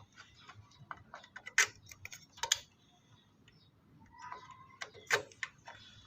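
Sharp plastic clicks and taps as a RAM module is handled and pressed into a motherboard memory slot, its retaining latches snapping shut. The loudest clicks come about one and a half, two and a half and five seconds in, with lighter ticks between them.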